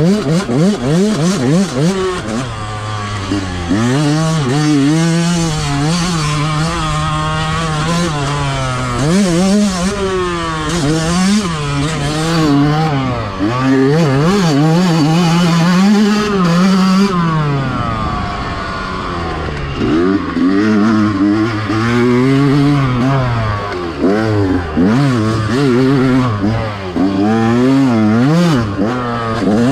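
Yamaha two-stroke dirt bike engine riding hard, its pitch rising and falling over and over as the throttle opens and closes, with a long drop in revs about two-thirds of the way through.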